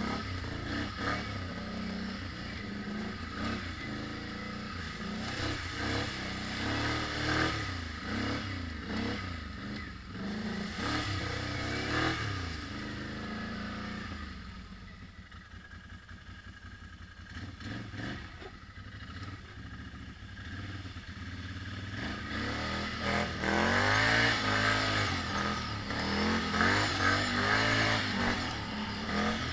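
ATV engine being ridden hard under changing throttle, its revs rising and falling. It eases off and runs quieter for several seconds about halfway through, then revs up hard again near the end.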